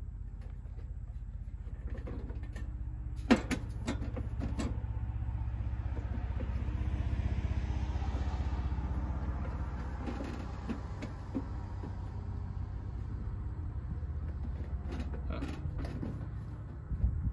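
A car passes by, its engine and tyre noise swelling to a peak in the middle and fading, over a steady low hum. Sharp clicks and knocks come from handling the metal breaker panel: the loudest is a little over three seconds in, a few follow soon after, and another pair comes near the end.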